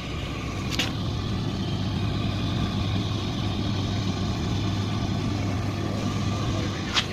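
Electrolux 6 kg clothes dryer running on test after repair of its broken fan, a steady, smooth-sounding hum. Two sharp clicks, one about a second in and one near the end.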